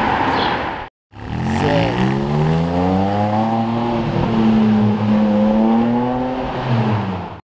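A sports car's engine accelerating: its pitch climbs steadily for about two seconds, then holds with small rises and dips. The sound cuts out briefly about a second in.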